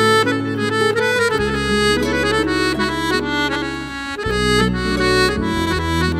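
Instrumental Turkish folk music: a melody played over sustained bass notes that change every second or two.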